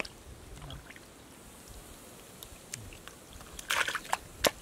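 Hands working thick wet mud, with soft crunchy squelches and scattered small clicks. Near the end comes a louder scrape and then one sharp knock as the mud-caked basin is grabbed.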